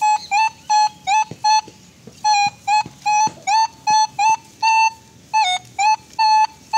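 Legend metal detector giving a run of short, mid-pitched beeps, each opening with a quick upward slide, about three a second with a brief pause about two seconds in, as its coil sweeps the soil: it is signalling metal in the ground.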